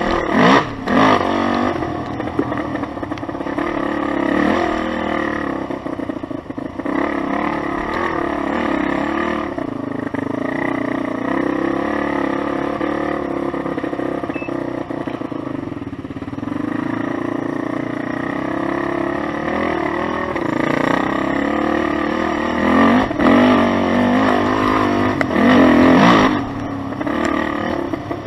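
Suzuki Z400's single-cylinder four-stroke engine running at easy, varying throttle on a dirt trail ride. It revs up briefly about a second in and twice more near the end.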